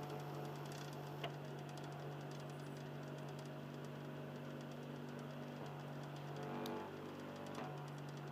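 Philips Lite-On DVD drive in an Xbox 360 Slim running with a soft grinding and a steady low hum, while the console sits in standby, with a faint click about a second in.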